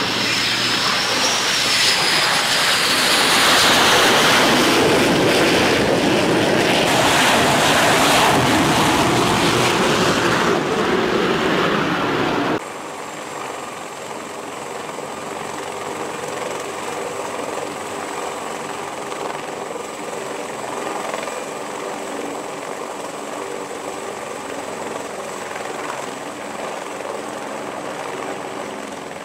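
Loud aircraft noise with a high whine sliding down in pitch, cutting off abruptly about twelve and a half seconds in. Then a Navy H-53 heavy helicopter runs and lifts off from the deck, a steadier, quieter turbine whine and rotor noise.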